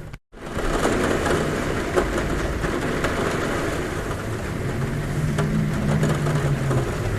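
Heavy rain falling on a roof, a steady dense hiss, broken by a moment of silence just after the start. A low droning hum comes in during the second half.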